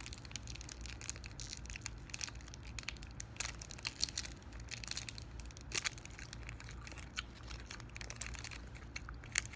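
Plastic snack wrapper crinkling and crackling in irregular sharp bursts as it is bitten and pulled at with the fingers, a packet that is hard to tear open.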